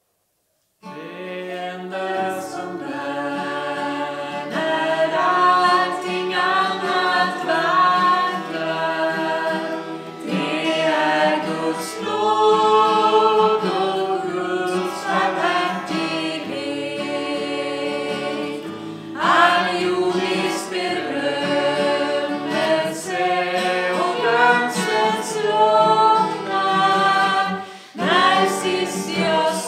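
A small group of women's and men's voices sings a hymn in parts, with an acoustic guitar accompanying. It starts about a second in, after a brief silence.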